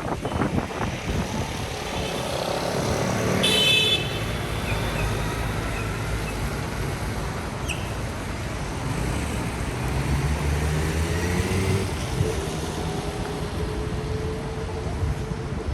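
Street traffic: cars running past steadily, with a short, high horn toot about three and a half seconds in.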